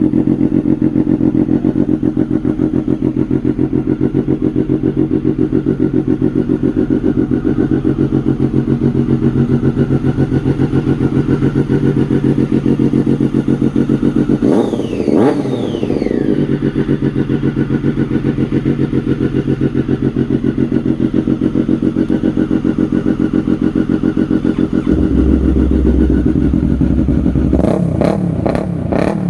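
Triumph Daytona 675's inline-three engine idling steadily, blipped once about halfway through with the revs falling back, then given several quick sharp blips near the end.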